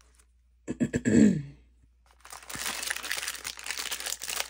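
A person clears their throat once, about a second in, its pitch falling. From about two seconds in, a clear plastic packaging bag crinkles steadily as it is handled and opened.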